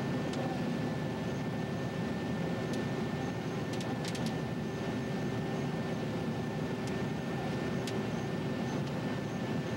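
John Deere 9600 combine harvester running steadily while harvesting, heard from inside the cab: an even engine and machinery drone with a thin high whine. A few faint clicks, several bunched together near the middle.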